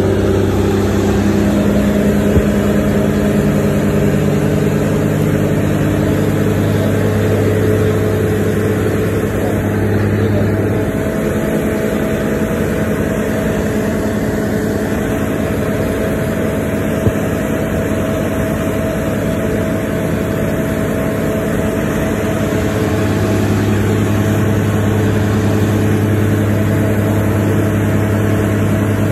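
Truck-mounted borehole drilling rig's engine running steadily under load, a heavy droning hum. Its lowest hum drops away about a third of the way in and comes back later, with a couple of short knocks along the way.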